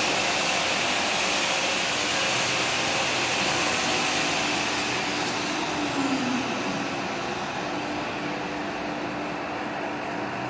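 Steady hissing machine noise from an automatic TIG seam-welding machine for pipes. A high thin whine glides down in pitch about four to six seconds in, and the noise eases slightly after that.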